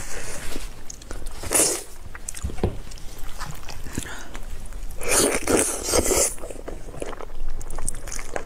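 Close-up eating of braised pig's trotter: wet biting and chewing of the sticky skin and meat, with squelching as the trotter is pulled apart by hand. The loudest moments are a short burst about a second and a half in and a longer one about five to six seconds in.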